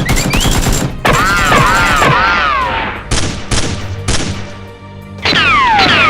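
Dubbed gunfire sound effects over music: rapid shots at first, then single shots about a second apart, then more rapid fire. A wavering pitched tone sounds partway through, and falling whistle-like glides come near the end.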